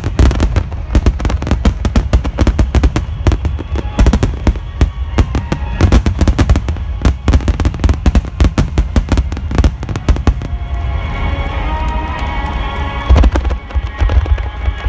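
A dense barrage of firework shells bursting in rapid succession, with deep booms and crackling. After about ten seconds the bangs thin out and music comes through, with one more loud burst near the end.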